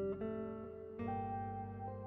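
Background music of plucked guitar: notes ringing and fading, with a new chord struck about a second in.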